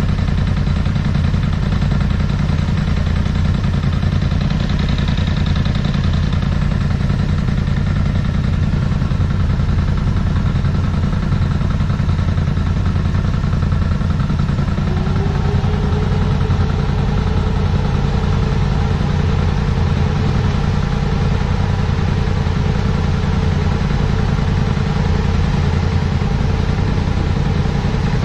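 Polaris side-by-side UTV engines idling steadily while the vehicles sit stopped in a line. A higher steady hum joins about halfway through.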